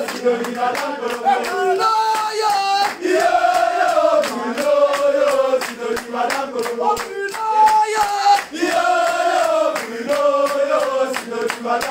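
A group of men singing a celebratory chant together in a held, rising and falling melody, over a steady beat of sharp rhythmic hits.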